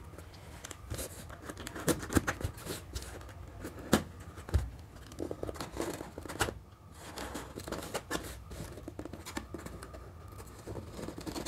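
Scissors cutting through a taped cardboard box: a run of irregular sharp snips and crunches of the card.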